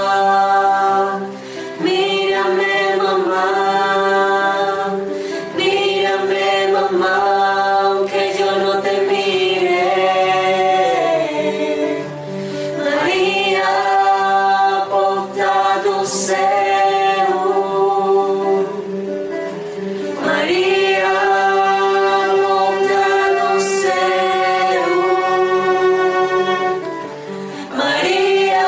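Choir singing a hymn in long, held phrases, with short breaths between phrases.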